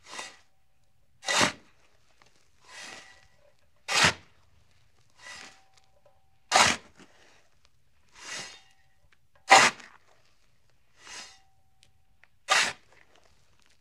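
A person breathing heavily close to the microphone: a short, loud, sharp breath about every two and a half to three seconds, alternating with a softer, longer breath, some trailing a faint whistle.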